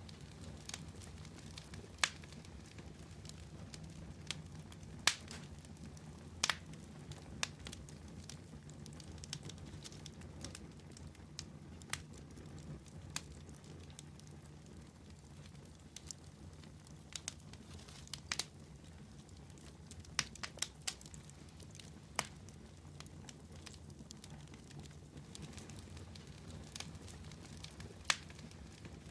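Wood campfire burning: irregular sharp crackles and pops over a low steady hum of flame.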